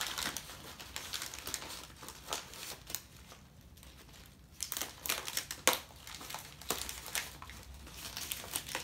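Brown paper bag crinkling and rustling in the hands as its stuffed bottom is squeezed and a rubber band is wound round it. The rustles come in irregular handfuls, with a short lull in the middle and one sharp click about halfway through.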